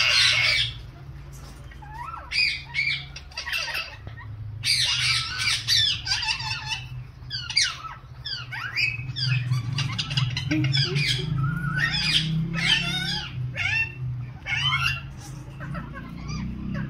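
Indian ringneck parakeets squawking and chattering: many short, sharp screeches and chirps, some sweeping up and down in pitch, in clusters throughout, over a low steady hum.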